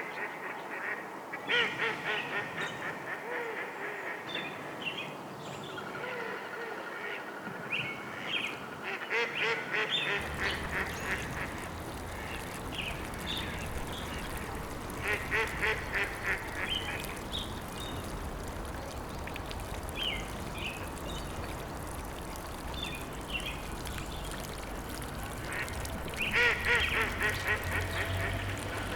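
Ducks quacking in rapid bouts that come and go. About ten seconds in, a steady rushing noise joins underneath them.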